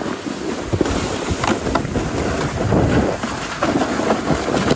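Plastic sled sliding fast down a snowy slope: a continuous scraping rush of snow under the sled mixed with wind on the microphone, broken by a few sharp knocks from bumps in the run.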